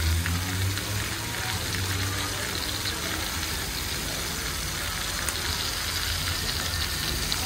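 Clay tagines cooking over charcoal braziers: a steady sizzling, crackling hiss with a low hum underneath.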